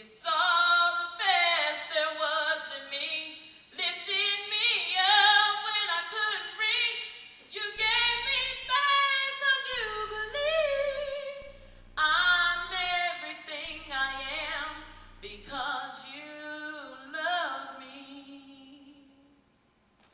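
A woman singing solo with no accompaniment, sliding through runs and holding wavering notes. Her last notes trail off and die away shortly before the end.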